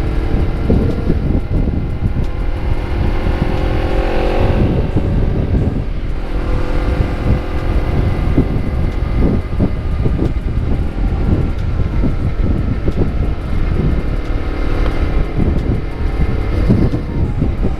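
Honda CBR250RR engine running through a KEA Speed aftermarket exhaust while riding, its pitch rising and falling with the throttle. Heavy wind buffeting on the microphone is mixed in.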